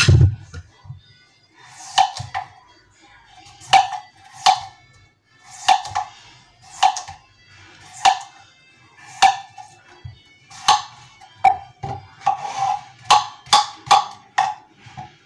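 Knife chopping courgette on a cutting board, about one cut a second and then a quicker run of cuts near the end. Each cut rings briefly.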